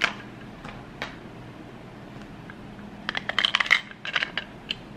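Small hard clicks and clinks of batteries and the plastic battery compartment of a handheld milk frother being handled: a single click at the start, another about a second in, then a quick flurry of clicking near the end.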